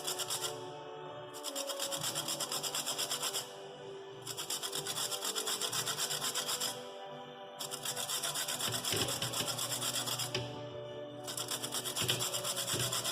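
Rasping scraping strokes by hand, quick and several a second, in runs of two to three seconds with short pauses between them.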